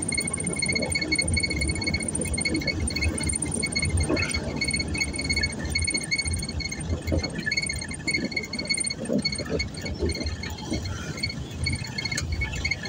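Car interior noise while driving slowly: a low engine and road rumble, with a rapid, high-pitched pulsing chirp running alongside it.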